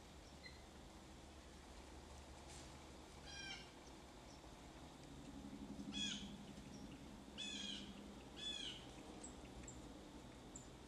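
Wood ducks calling: four short, high-pitched squealing calls, one a few seconds in and three more in quick succession a few seconds later, each with a falling tail.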